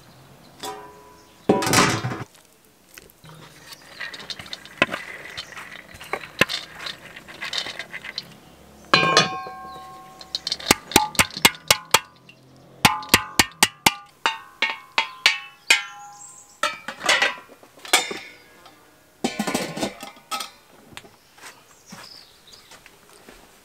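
Stainless steel cooking pot and its metal lid clinking and ringing as they are handled: loud knocks, then a run of quick, evenly spaced ringing clinks in the middle as the lid settles and rattles on the pot's rim.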